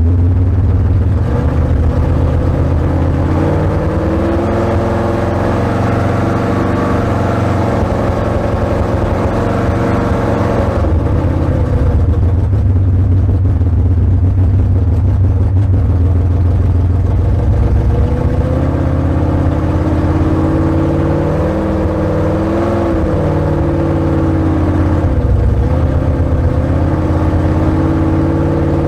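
Tunnel-rammed big-block Chevy V8 running at a fairly steady speed, its pitch drifting gently up and down, with a brief rise and fall about two-thirds of the way through.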